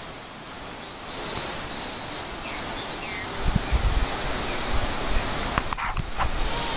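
Outdoor ambience: a steady hiss of rustling and wind, with a few faint chirps. From about halfway, low rumbling buffets the microphone, and a few clicks come near the end.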